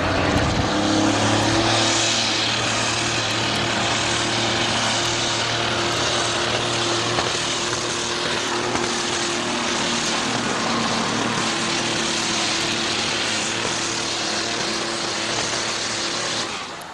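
Pulling tractor's engine running flat out under load as it drags a weight-transfer sled, a steady, heavy roar with a hiss over it. It falls away just before the end.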